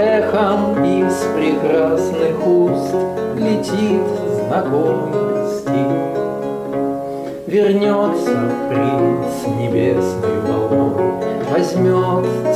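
Renaissance ten-course lute played solo: a continuous run of plucked melody and chords, with a brief break between phrases about seven seconds in.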